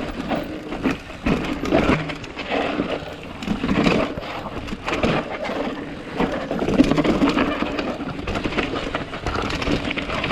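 Mountain bike clattering over a rough, rocky trail: a dense, irregular run of knocks and rattles from tyres, chain and frame.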